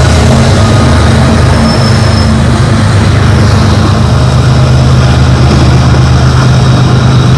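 Several BNSF GE Evolution-series diesel-electric locomotives passing at close range, their engines running with a steady low drone over the noise of wheels on rail.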